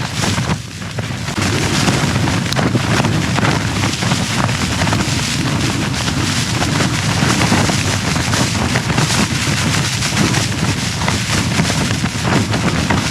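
Strong wind gusting against a small backpacking tent, the flysheet flapping and snapping constantly in a loud, continuous racket full of sharp cracks.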